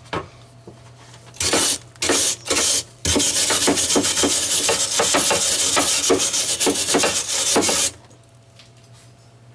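MIG welder arc crackling: three short bursts like tack welds, then a steady bead of about five seconds that cuts off sharply.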